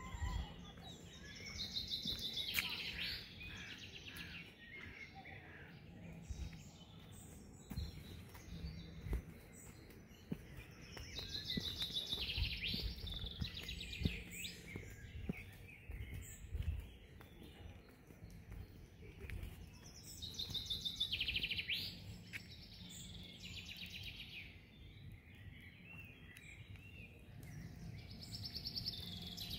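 A songbird sings a short, fast trill that falls in pitch, repeated about every nine seconds, over soft footsteps on paving.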